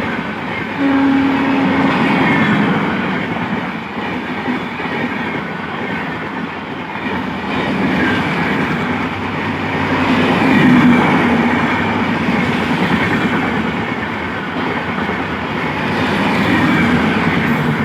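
High-speed passenger train led by a WAP-7 electric locomotive running past at speed, its coaches clattering over the rail joints in a continuous rumble that swells and eases.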